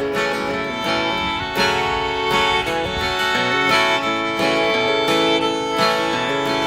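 Background music: an instrumental passage led by guitar.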